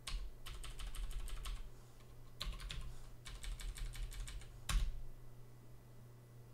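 Typing on a computer keyboard: two quick runs of keystrokes with a short pause between them, then one single louder keystroke about five seconds in.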